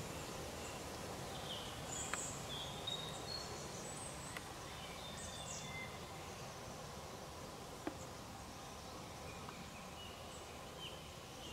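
Outdoor ambience: a steady low background rumble with scattered short, high chirps of distant birds and a few faint sharp clicks.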